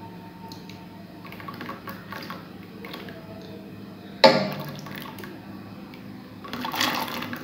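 Dry split chickpea lentils (chana dal) poured from a bowl into a pot of water, pattering and splashing as they hit the water. A sudden knock about four seconds in, and heavier splashing near the end as more dal pours in.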